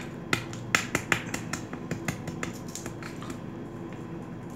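Hard-boiled egg shell being cracked and peeled by hand: a quick run of small sharp clicks and crackles that thin out and stop about three seconds in.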